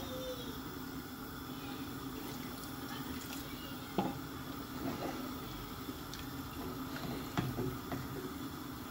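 Fish curry simmering in a pot on a gas stove: a steady bubbling hiss, with a couple of faint knocks about four and seven seconds in.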